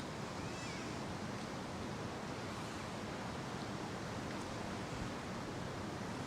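Wind blowing through bare winter trees, a steady rushing noise with the low rumble of distant city traffic beneath it. A faint short squeak comes under a second in.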